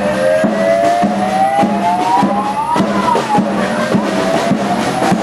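Batucada street drum band beating about two strokes a second, with a wailing tone over it that climbs slowly, drops about three seconds in and climbs again.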